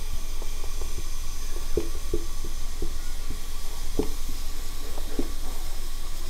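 Marker pen writing on a whiteboard: short, irregular squeaks and scratches of the pen strokes over a steady background hiss.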